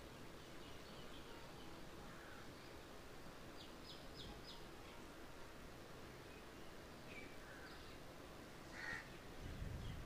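Faint, steady wash of a small waterfall with birds calling over it. There is a quick run of four short high chirps about four seconds in and another call near the end. A brief low rumble comes just before the end.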